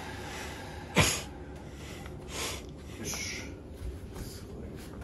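A person's short, sharp breaths through the nose, the loudest about a second in, followed by a few softer breaths.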